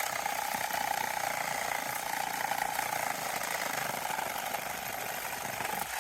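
Reciprocating saw (Sawzall) running steadily as it cuts, then stopping abruptly near the end.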